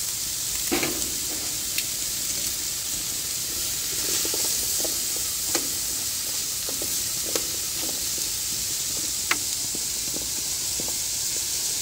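Oiled zucchini, mushroom and red onion pieces sizzling steadily on a baking sheet preheated hot on a grill, a continuous frying hiss, with a few sharp ticks scattered through.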